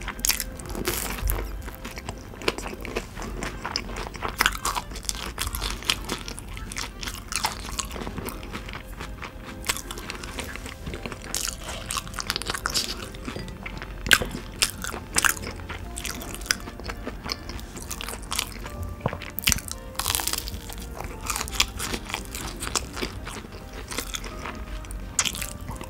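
Close-up crunching and chewing of fried chicken nuggets dipped in sauce. The crisp breaded coating cracks in irregular sharp bites, with wet chewing between them.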